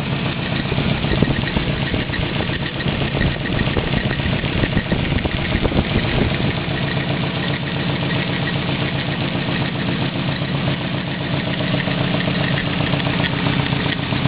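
Engine swapped into a Nissan 240SX idling steadily. It carries a strange noise the owner cannot explain and is trying to track down.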